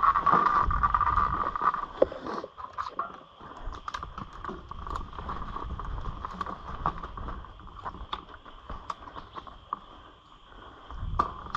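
Mountain bike ridden over a rough dirt trail: tyres rolling on dirt, with frequent clicks and rattles from the bike over bumps and a low rumble of wind and vibration at the helmet-mounted microphone. It is loudest in the first two seconds.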